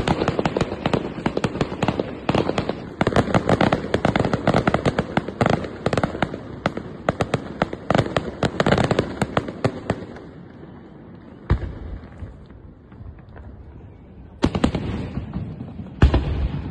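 Fireworks: a dense run of rapid bangs and crackles for about the first ten seconds, then after a lull three single heavy booms of aerial shells bursting.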